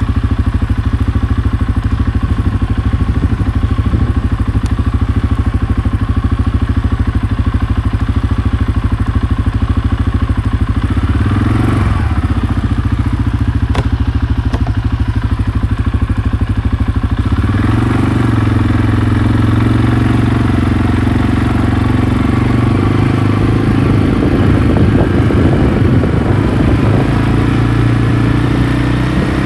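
ATV engine running, its note changing about a third of the way in and then climbing to a higher, stronger pitch just past halfway as it is given more throttle.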